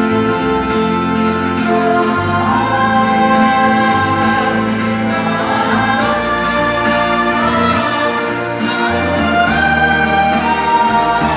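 A live orchestra playing music with held notes, with voices singing a melody over it.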